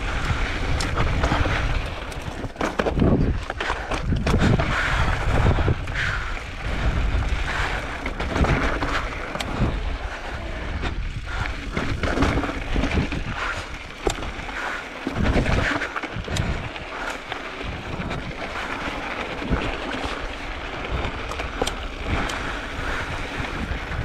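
Wind buffeting the microphone while an electric mountain bike rides down a rocky dirt singletrack: tyres rolling over dirt and stones, with frequent knocks and rattles from the bike.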